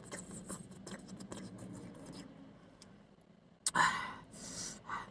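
Close-up eating sounds: small clicks and scrapes of utensil and takeout container, then two loud breathy bursts near the end.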